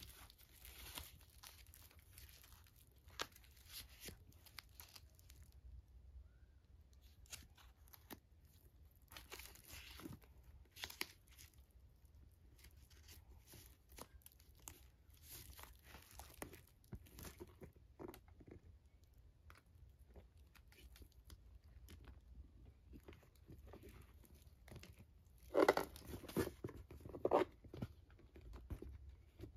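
Protective packing wrap on a new handbag crinkling and tearing as it is pulled off the hardware by hand, in short, faint, intermittent rustles. A louder burst of rustling and handling comes near the end.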